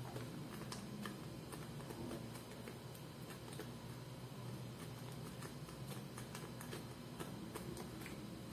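Carton of sweetened condensed milk crackling faintly in the hands as it is squeezed and poured into a saucepan. Scattered light clicks sound over a low steady hum.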